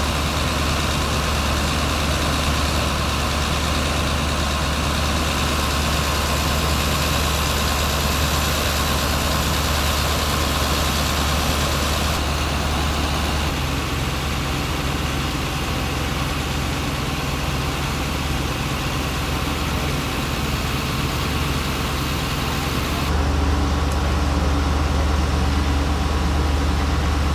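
An engine idling steadily: a low hum with a hiss over it, shifting abruptly in tone twice.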